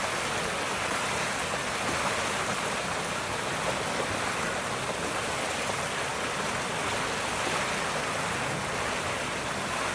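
A steady rushing noise, even and unbroken, like running water, that starts and stops abruptly.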